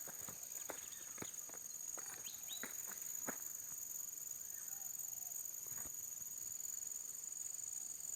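Steady high-pitched chorus of insects, with scattered footsteps, most of them in the first three seconds.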